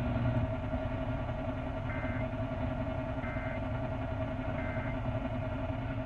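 A steady low hum and rumble with a few held tones, from a car radio tuned to AM with the car running. Three short two-note beeps come about a second and a half apart in the middle.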